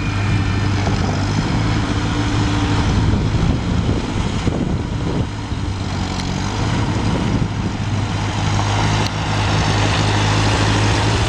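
Massey Ferguson 135 utility tractor engine running steadily as the tractor drives and turns under a front loader, dropping a little in loudness midway and picking up again near the end.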